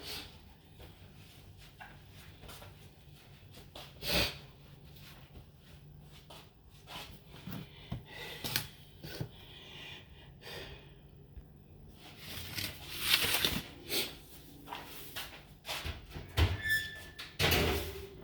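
Irregular knocks, clicks and scuffs of household handling in a small room, with a louder stretch of rustling noise about two-thirds of the way through.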